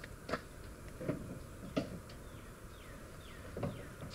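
Four irregular knocks and clunks as gear is handled at a pickup truck. From about two seconds in, a bird calls a run of short falling notes, about two a second.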